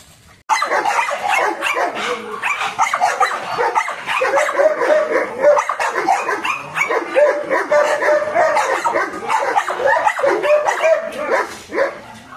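Several dogs barking and yipping rapidly and without pause, starting suddenly about half a second in, with some short whining notes among the barks.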